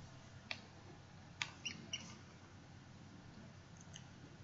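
A few faint computer mouse clicks over a low hiss: one about half a second in, a sharper one near a second and a half, two lighter ones just after, and a faint tick near the end.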